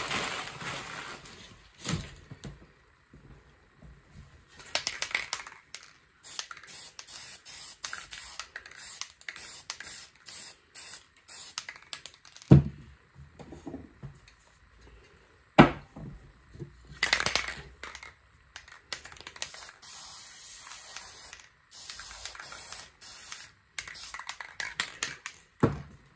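Aerosol spray paint can hissing in many short stop-start bursts, with a few sharp knocks in between.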